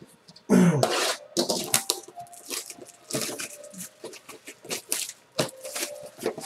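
Plastic trading-card pack wrapper crinkling and tearing open, with irregular rustles and clicks as the cards are handled. A short throaty sound, the loudest moment, comes about half a second in.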